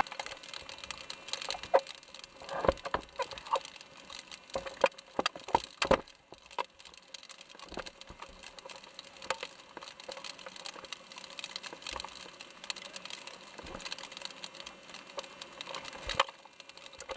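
A scatter of irregular sharp clicks and knocks, thickest in the first few seconds and sparser afterwards, over a faint steady background hum.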